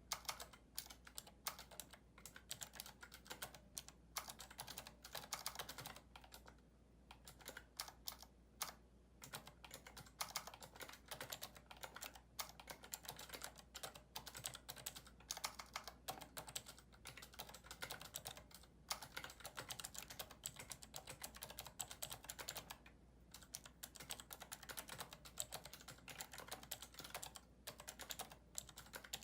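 Steady, fast typing on a mechanical keyboard with clicky Cherry MX Blue switches: a dense run of key clicks, with short pauses about seven and nine seconds in.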